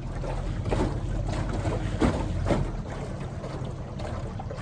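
Boat moving on a river: water sloshing and splashing against the hull in several short bursts, over a low steady rumble.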